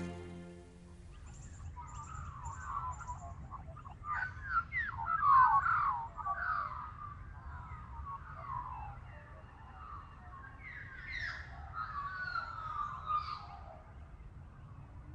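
Birds calling, a busy run of short chirping notes that slide up and down, loudest about four to six seconds in, over a faint low outdoor rumble.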